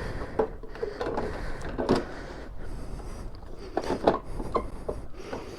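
Scattered light clicks, taps and rustling of hands handling tools and parts while working on a motorcycle, with a few sharper knocks about two and four seconds in.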